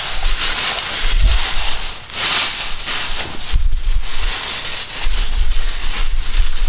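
Dry fallen leaves rustling in bursts as hands rummage through them, with low rumbles of wind on the microphone.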